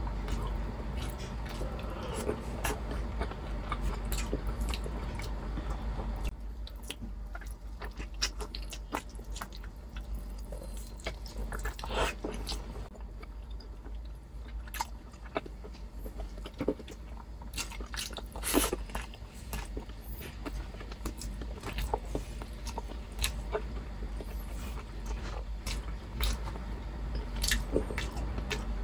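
A person chewing and smacking close to the microphone while eating saucy beef rib caldereta by hand, with irregular sharp wet clicks from the mouth.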